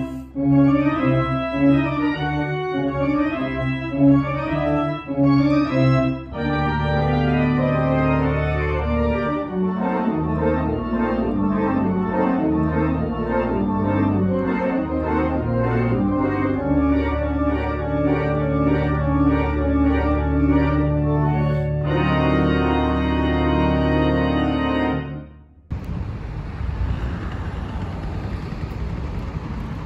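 Background music on an organ-like electronic keyboard: wavering held notes at first, then sustained chords that change every few seconds. About 26 seconds in the music cuts off abruptly and a steady rushing street noise takes over.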